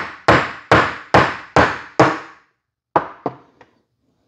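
Steel ball peen hammer striking a pin punch to drive a roll pin out of an AR-15 buffer: five or six sharp metallic strikes about two a second, each ringing briefly. After a short pause come three lighter clicks.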